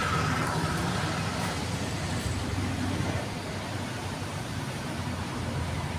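Fuel poured from a plastic jug through a funnel into a motorcycle's fuel tank, a steady rushing splash.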